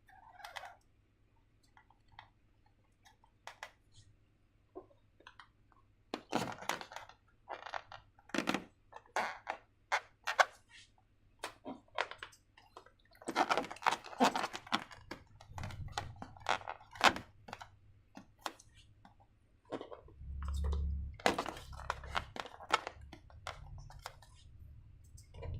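Hands handling slime-making materials at close range: scattered taps and clicks of containers and tools, with bursts of crinkly, crunchy handling noise and a dull low thump about twenty seconds in.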